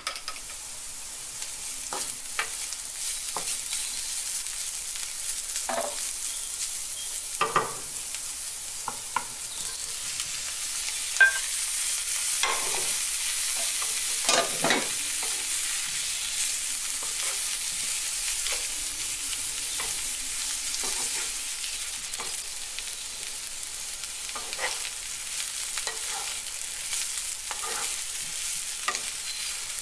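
Brussels sprouts, onion and carrot sizzling in a nonstick frying pan, stirred with a wooden spatula that scrapes and knocks against the pan now and then. The sizzle grows louder over the first ten seconds or so, then holds steady.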